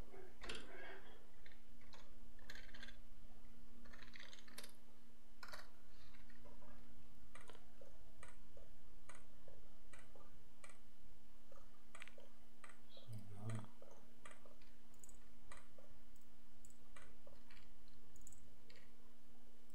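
Scattered, irregular clicks of a computer mouse and keyboard, over a steady electrical hum, with one brief low thump about two-thirds of the way through.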